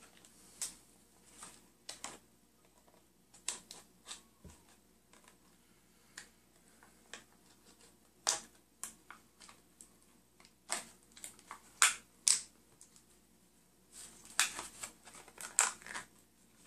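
Plastic packaging of a two-tube epoxy kit being forced open by hand: scattered sharp crackles and snaps of stiff plastic, coming thicker and louder in the second half.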